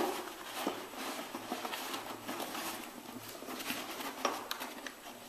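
Hands handling a lamp shade and fitting a small knurled ball onto a threaded bracket stud inside it: soft rustling and rubbing of the shade with scattered light clicks and taps, and a sharper click at the very start.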